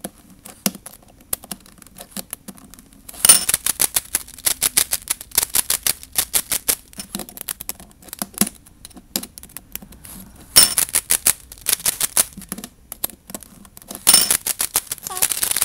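A plastic DIY speed cube being turned quickly, its layers clacking in fast runs of sharp clicks in three bursts after a quieter start. The cube's screw tension is being tried out after tightening.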